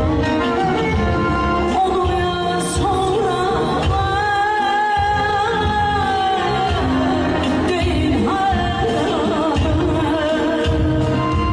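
Live Azerbaijani mugam singing by a female voice: long held notes with rapid ornamental trills and wavers in pitch, over band accompaniment with a steady drum beat.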